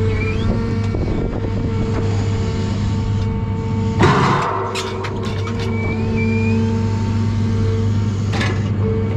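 John Deere 1010G forwarder running steadily, its hydraulic crane giving short rising whines as the grapple swings a bundle of spruce logs over the load bunk. About four seconds in the logs land in the bunk with a loud knock, followed by a few lighter clicks of wood and steel.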